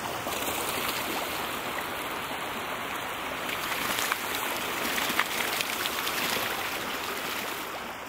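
Steady rushing, splashing water, with scattered sharp splashes and drips through it.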